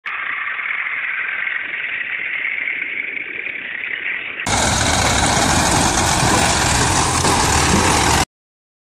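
Mahindra 275 DI tractor's diesel engine running as the tractor pulls its trolley over stony ground. About four and a half seconds in the sound switches abruptly to a louder, fuller recording with a deeper rumble, and it cuts off to silence about a second before the end.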